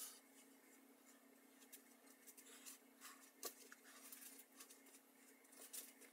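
Near silence: room tone with a steady low hum and a few faint, scattered soft taps and rustles.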